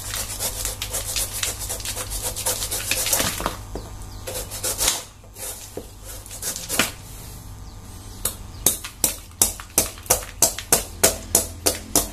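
Knife scraping and cutting into the spiky skin of a young jackfruit in quick repeated strokes, scoring the rind so its latex runs out. About eight seconds in, the strokes settle into a steady rhythm of about three sharp scrapes a second.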